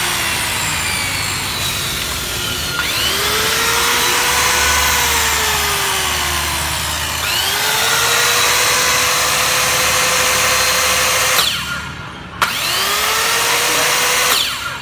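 Hitachi C6MB4 165 mm corded circular saw run free with no cut: the motor and blade whine up to speed about three seconds in, again about seven seconds in, and near the end, each time winding down when the trigger is let go. Just past eleven seconds the whine cuts off abruptly as the electric brake stops the blade; the saw is in good running order with its brake working.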